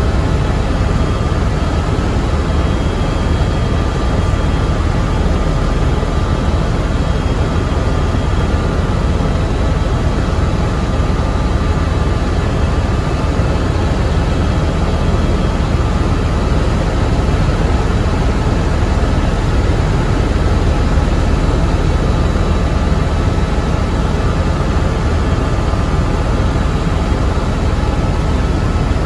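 Helicopter cabin noise in steady flight: a loud, even rumble of the engine and rotor with a thin, steady high whine over it.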